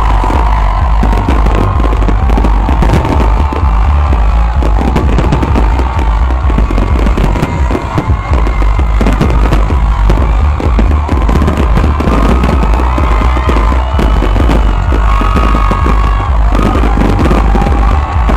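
A dense fireworks barrage: aerial shells bursting in quick succession with deep booms and crackling, heavy and unbroken, with music playing alongside.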